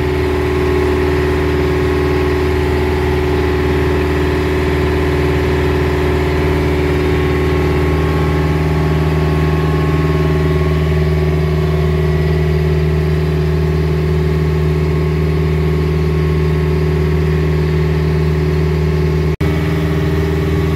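Motor boat's engine running steadily under way, a constant drone with several steady tones. It breaks off for an instant about a second before the end, where the recording cuts.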